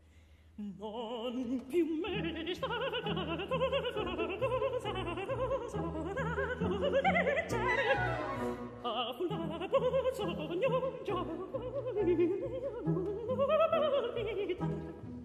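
Background music: operatic singing with a wide vibrato over instrumental accompaniment, coming in about half a second in.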